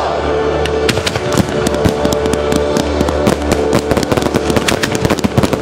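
Aerial firework shells bursting in a rapid barrage of sharp bangs and crackles, growing denser about three seconds in.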